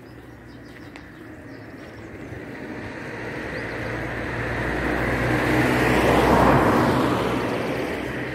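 A car passing by: its engine and tyre noise rise as it approaches, are loudest about six and a half seconds in, then fade away.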